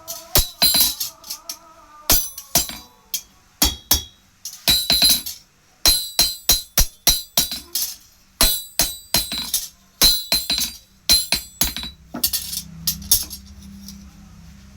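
Blacksmith's hammer striking steel on an anvil in quick runs of several ringing blows, about four to five a second, while forging a sickle blade. Near the end the blows thin out and a low steady hum comes in.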